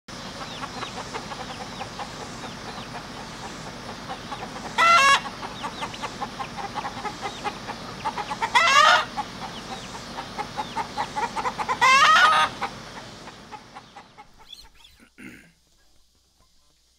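Chickens clucking steadily, with three loud calls about five, nine and twelve seconds in. The clucking fades away near the end.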